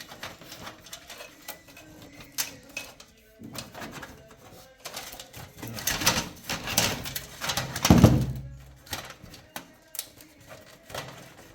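A computer power supply being worked out of a PC case: scattered clicks and knocks, a busier clatter of handling and scraping later on, and a heavy thump about eight seconds in as the unit comes free or is set down.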